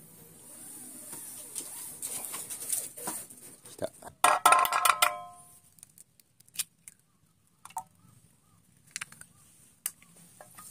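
Metal saucepans clattering about four seconds in and ringing briefly with several clear tones, then a few light taps and clicks as an egg is cracked on a pan and dropped into it.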